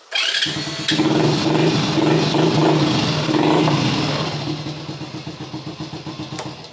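Honda Biz 100's single-cylinder four-stroke engine started on its electric starter, catching almost at once, then revved a few times before running down with slowing pulses and dying out near the end. It is the fresh starter motor's proof that the bike now fires on the electric start.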